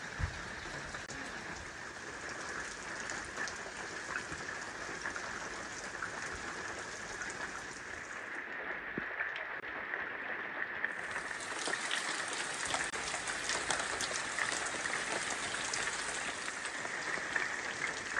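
Steady rain falling, with many separate drops ticking on close surfaces. The brighter hiss drops away for a couple of seconds around the middle.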